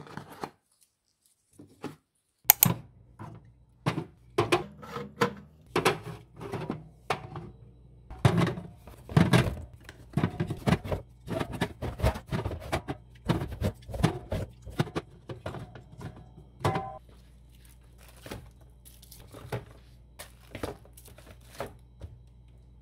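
Handling sounds of objects on a hard surface: irregular knocks, taps and thunks with some tearing and crinkling, over a low steady hum. A brief squeak comes about three-quarters of the way through.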